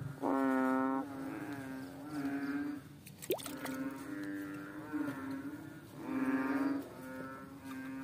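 Frogs calling in a chorus: a steady low droning tone with louder, drawn-out croaks rising out of it about once a second, the loudest right at the start. A single short rising sweep sounds a little over three seconds in.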